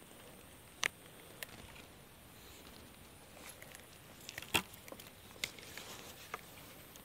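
Faint rustling and a few scattered sharp clicks from footsteps in grass and the handling of a fishing rod, over a low steady outdoor hiss.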